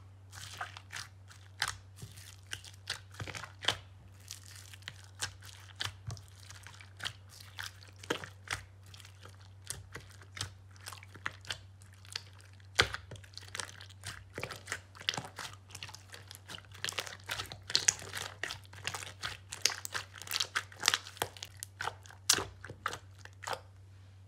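Red slime mixed with foam beads being squeezed, poked and kneaded by hand in a glass dish: a steady stream of crisp crackles and pops, busier in the second half, over a low steady hum.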